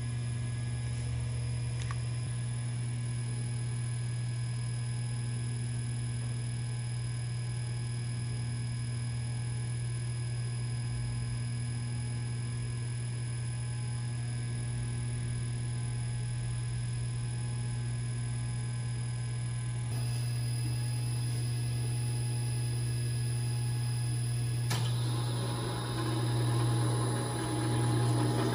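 A steady low electrical hum with no cutting or tool sounds, swelling a few times in level near the end.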